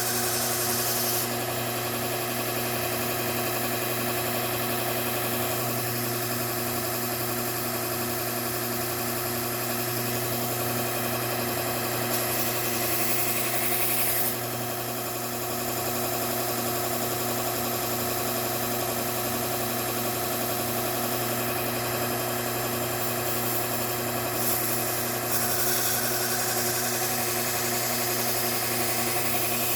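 Bucktool slow-speed belt sander running with a steady motor hum while a Trizact A30 belt grinds the bevel of a pair of household scissors. The grinding hiss grows brighter for a couple of seconds about twelve seconds in and again later on.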